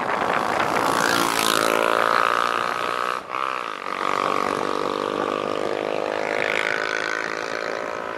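Wind rushing over the camera microphone on a fast bicycle descent, with a steady pitched drone over it that bends and briefly drops out a little over three seconds in.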